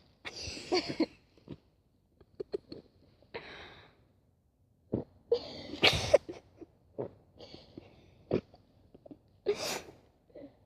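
Dog sneezing repeatedly, about five short sneezes spread a couple of seconds apart, with faint clicks between. The sneezing comes from dirt sniffed up her nose while digging, as the owner guesses.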